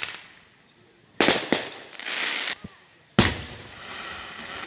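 Aerial firework shells bursting overhead: three sharp bangs, two close together about a second in and one louder one about three seconds in, each trailing off in a rumbling echo. A brief hiss falls between them.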